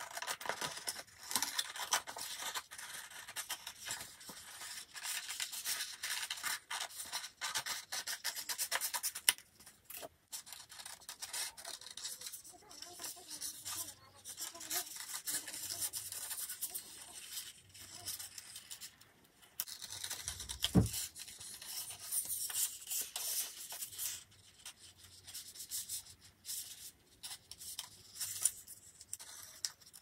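Scissors snipping through crayon-coloured paper in a continuous run of short cuts, with the sheet rustling as it is turned. A single dull thump comes about two-thirds of the way through.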